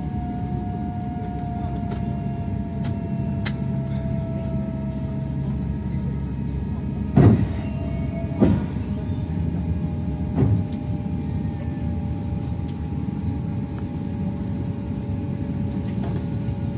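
Steady low rumble of an Airbus A350-1000 cabin on the ground, with a faint whine slowly falling in pitch over the first few seconds. Three short thumps come about halfway through, the first the loudest.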